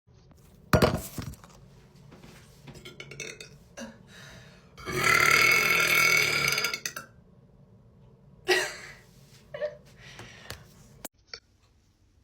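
A woman burping: a short burp about a second in, then a long drawn-out, pitched burp lasting about two seconds from about five seconds in, followed by a few shorter burps.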